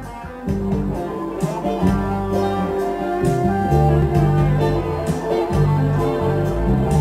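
Electric guitar playing a melodic lead line over a backing track with a bass line and a steady beat.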